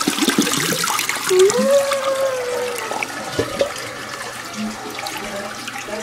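Toilet flushing: water rushing and swirling as the bowl drains, loudest at first and fading. A short whine comes through partway.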